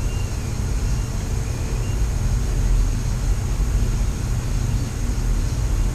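Steady low rumble with a faint, steady high whine above it.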